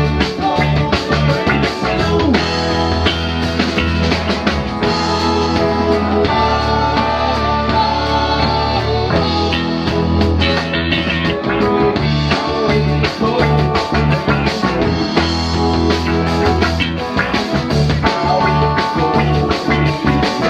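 Live rock band playing an instrumental stretch of a song: guitar over bass, keyboards and drum kit, in a loose psychedelic-rock jam.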